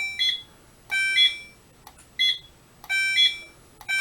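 Fire alarm system in alarm after its smoke and heat detector was tripped with the test button. Two electronic alarm sounders pulse in turn, each about once a second: one a longer steady beep, the other a shorter, brighter note just after it.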